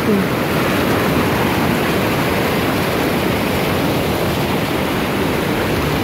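Rushing white water of a river cascade pouring over rocks, a loud, steady rush with no let-up.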